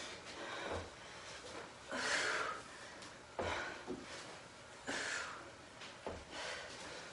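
A woman's hard breathing during V-ups: forceful, airy exhalations roughly every second and a half, one with each repetition, with a few soft low thumps.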